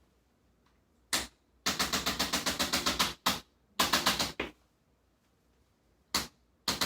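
Chiropractic adjusting instrument firing rapid sharp clicks, about nine a second, in three runs, each led by a single click, with short pauses between, used on a muscle spasm.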